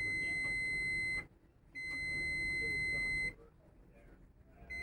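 A multimeter's continuity beeper giving a steady, high-pitched beep twice, each about a second and a half long, with a third beep starting just at the end.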